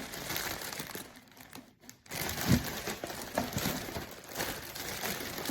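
Crinkling plastic packaging as a packaged fabric duffel bag is handled and unwrapped, pausing briefly about a second in, then resuming with a soft thump about two and a half seconds in.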